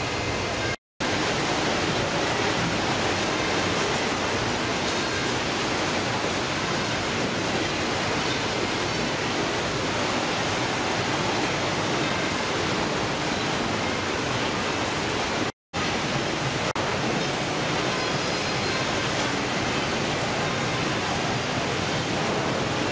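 Steady, even rushing noise of fish-processing machinery and running water on a fishing boat's factory deck, broken by two brief dropouts to silence, about a second in and about two-thirds of the way through.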